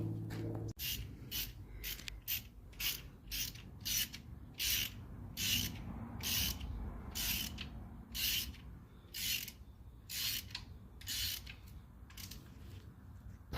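Hand ratchet wrench clicking in a run of short strokes, roughly one a second, running new head bolts down into an engine's cylinder head without tightening them to torque.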